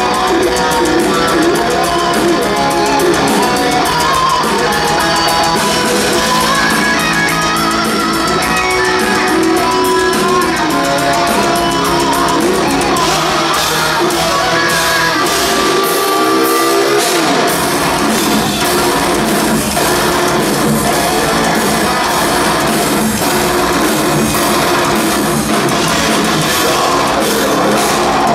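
Heavy metal band playing live: distorted electric guitars, bass guitar and a drum kit, loud and dense. About sixteen seconds in the low end drops out briefly under a sliding pitch, then the full band comes back in.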